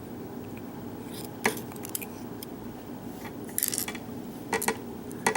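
Small pin-tumbler lock parts, pins and springs, clicking and clinking against metal as they are taken out of the lock and handled during disassembly. The clicks are light and scattered, with a small quick cluster a little past halfway.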